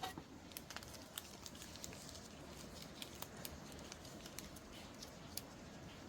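Steady rain hiss with a scatter of small, crisp ticks and crinkles from paper being handled.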